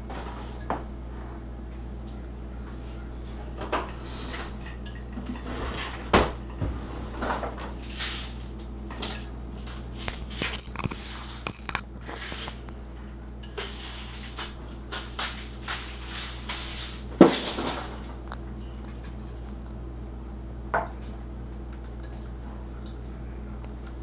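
An eclectus parrot clinking and tapping on an open glass clip-top jar as it works sunflower seeds out, in irregular clicks and knocks. The loudest knocks come about six seconds in and about two-thirds of the way through, over a steady low hum.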